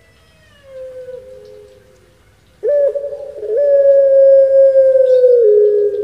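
Puter pelung, a deep-voiced breed of collared dove, cooing. A faint falling note comes early, then about two and a half seconds in a loud, low, drawn-out coo begins. After a short opening note it is held steady for about two seconds and drops lower in pitch near the end.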